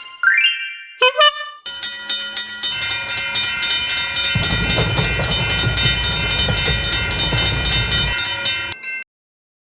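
A quick rising sound-effect glide, then a train horn holding one long chord for about seven seconds while the low rumble of a train running on rails joins about halfway through; both cut off suddenly near the end.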